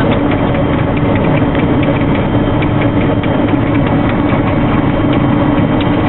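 Claas Lexion 520 combine harvester running while cutting winter barley, heard from inside the cab: a steady, loud mechanical din with a low hum and rapid, irregular clicking and clattering from the working machinery.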